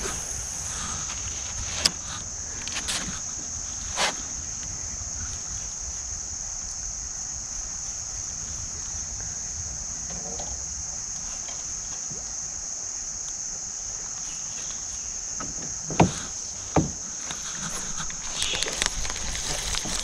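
A steady, high-pitched chorus of summer insects, unbroken throughout, with a few sharp knocks, the loudest two about three-quarters of the way through.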